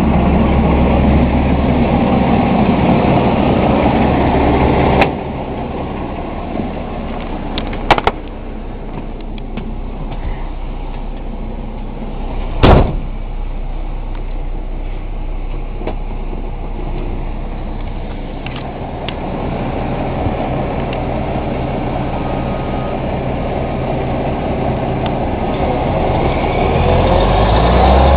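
Dump truck's diesel engine running steadily, louder for the first five seconds and then dropping. There are a couple of sharp clicks around eight seconds and a loud knock about thirteen seconds in. Near the end the engine revs up.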